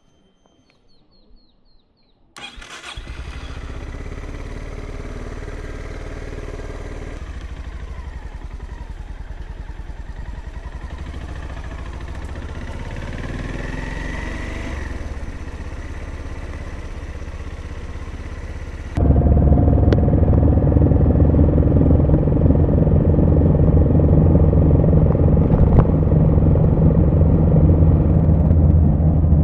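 Honda GB350's air-cooled single-cylinder engine starting about two seconds in and then idling steadily with an even low pulse. About two-thirds of the way through it suddenly becomes much louder and closer. A few faint short beeps come before the start.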